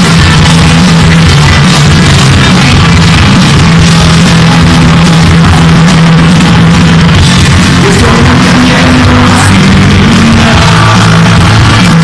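Rock band playing live and loud: electric guitars, bass guitar and drum kit.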